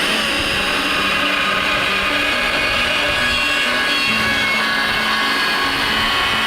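Chainsaw running steadily at high speed, cutting wood, with background music playing under it. The saw starts suddenly right at the beginning.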